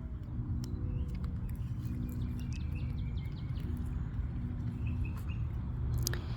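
Outdoor ambience: a steady low rumble with a faint steady hum underneath, and a few faint bird chirps and soft clicks.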